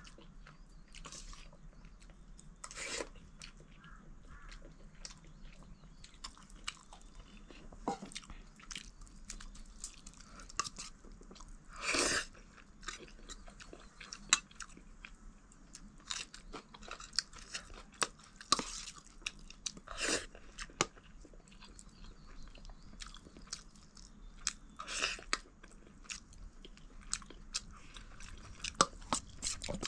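A person eating: chewing and crunching, with many small sharp clicks and a few louder noisy bursts.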